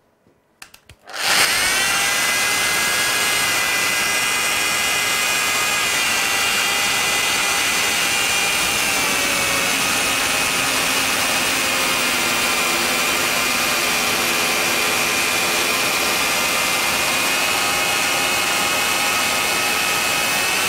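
A Westfalia 500-watt mini plunge-cut circular saw with a diamond-tipped blade starts about a second in, its whine rising briefly as it spins up, then runs steadily with a high whine and grinding as it cuts through a tile.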